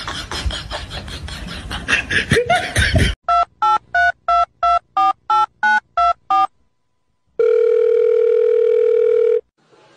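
A run of about ten short electronic beeps, about three a second, each shifting slightly in pitch like a phone keypad's tones. After a short gap comes one steady electronic tone lasting about two seconds, like a phone's dial tone. Before the beeps, about three seconds of loud noisy sound with a brief rising whine.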